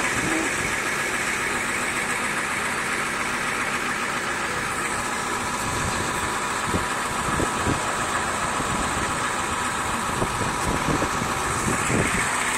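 Fire truck engine idling steadily, with a few light knocks in the second half.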